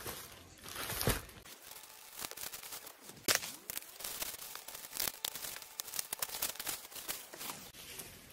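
Plastic courier bag and bubble-wrap packaging crinkling and rustling as a parcel is unwrapped by hand, with irregular sharp crackles and taps, the loudest about a second and three seconds in.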